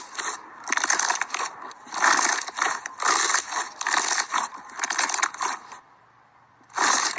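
Slime being squeezed and pressed by hand, giving repeated bursts of many small crackling pops about once a second, with a short pause about six seconds in.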